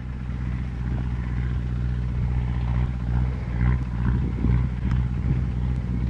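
MTZ 552 tractor's diesel engine running steadily as it pulls a trailed field sprayer, growing a little louder over the first second and then holding even.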